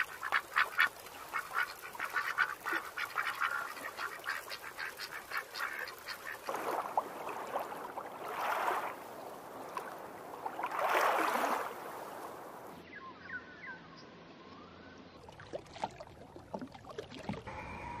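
Ducks quacking: a quick run of many short calls for the first several seconds, then a few longer rushing sounds in the middle. After a change of scene, faint high bird chirps near the end.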